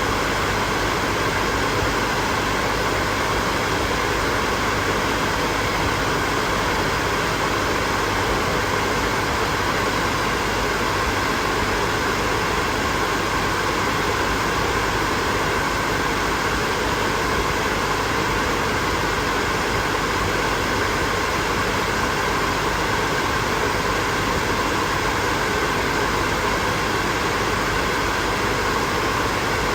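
Hair dryer running steadily without a break: an even rush of blown air with faint steady tones from its motor and fan.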